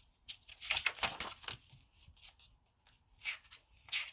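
Paper rustling and crinkling as a picture book's pages are handled and turned. It comes in two clusters of short rustles, one near the start and another near the end.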